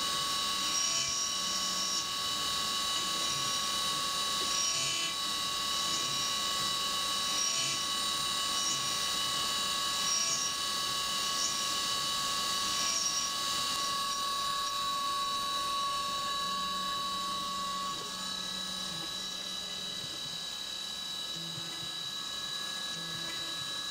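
CNC milling machine running a small end mill through a steel gas block under flood coolant: a steady whine of several high tones over a hiss, with faint repeated ticks in the first half. About three-quarters of the way through, one tone stops and the sound gets slightly quieter.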